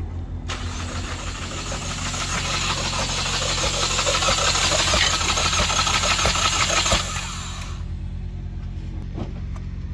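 2016 Ford Focus 2.0 L inline-four cranking over on its starter for about six and a half seconds with its spark plugs out, air hissing from the open plug holes, then stopping abruptly. This is a compression test of cylinder 2, which has no compression.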